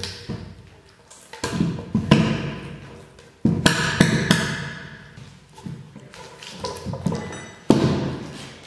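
Mortise axe chopping into a log: about nine dull wooden thuds at uneven intervals, each ringing off briefly.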